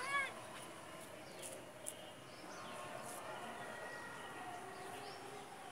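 A short animal call that rises and falls in pitch, right at the start. Then a faint, steady outdoor background with a couple of soft taps.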